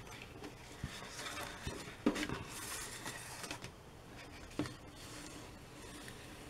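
Adhesive paper tape being peeled off the border of a watercolour sheet, with paper rustling and a few light knocks as the sheet is handled on the table. A brief scratchy hiss comes around two to three seconds in.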